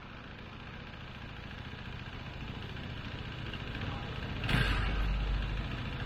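KTM Duke 390 single-cylinder engine idling through an aftermarket Akrapovic slip-on exhaust, its low rumble growing slowly louder. About four and a half seconds in comes a sudden louder burst, after which the rumble is heavier.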